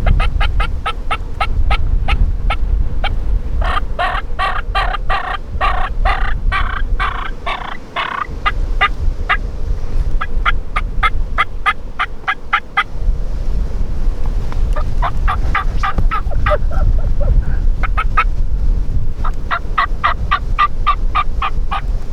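Wild Merriam's turkeys gobbling in rapid runs of notes, with short breaks between runs, over a steady low wind rumble on the microphone.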